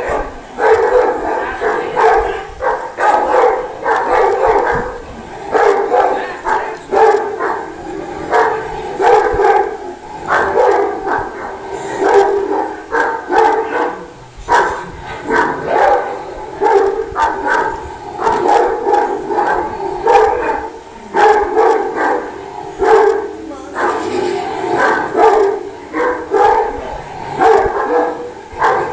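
Large dogs barking, with human voices over them.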